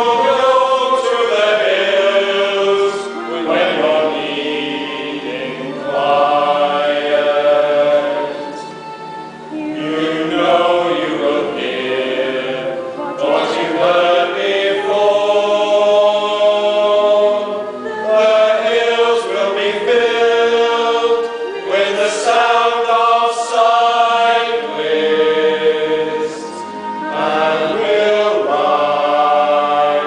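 Male vocal ensemble of seven men singing together from song books, sustained sung phrases with short breaks between them.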